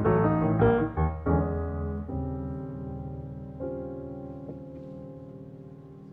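Background piano music: a run of quick notes in the first second or so, then a few held chords that slowly fade away.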